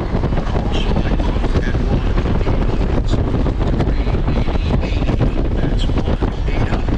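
Wind buffeting the microphone at a steady cruise on a Honda GL1500 Gold Wing motorcycle, with the bike's flat-six engine and tyre noise underneath.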